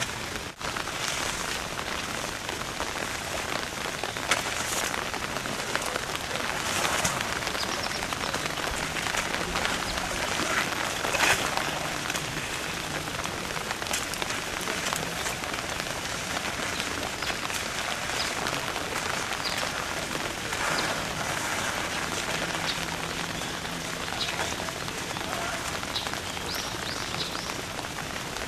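Steady hiss like rain falling on a surface, with a few short high chirps near the end.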